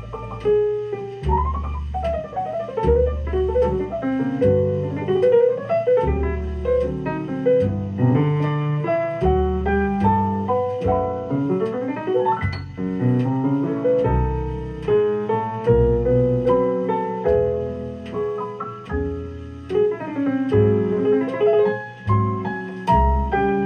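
Jazz piano recording with a steady bass line, played back through JBL C40 loudspeakers driven by a Scott Type 272 valve integrated amplifier.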